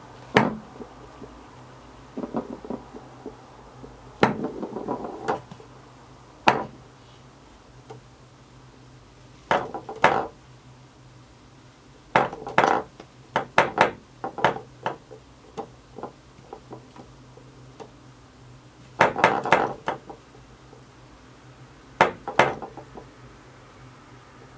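A hard trackball ball from a computer mouse, batted by a cat so it rolls and knocks on a hard surface: irregular sharp clicks and short rattling clatters, some single, some in quick clusters.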